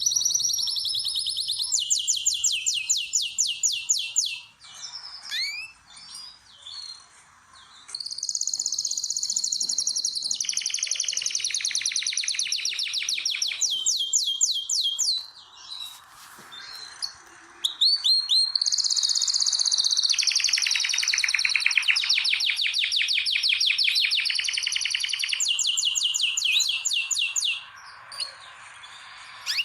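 Canary singing: long phrases of fast, rolling trills of rapidly repeated high notes, with short breaks about five seconds in and again around sixteen seconds.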